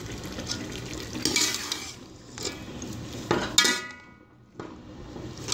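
Metal slotted spoon stirring and scraping through chicken and vegetables in a steel pot, clinking against the pot over a light sizzle. One clink rings out about three and a half seconds in.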